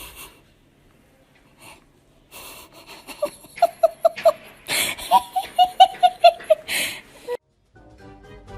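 A person laughing in two bouts of quick, rhythmic ha-ha pulses with breathy, wheezing intakes between them, the second bout longer and louder.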